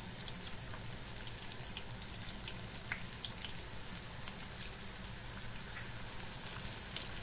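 Flour-and-semolina-breaded Baltic herring frying in vegetable oil in a pan: a steady sizzling hiss with scattered small pops and crackles. This is the first batch, in a pan not yet fully heated.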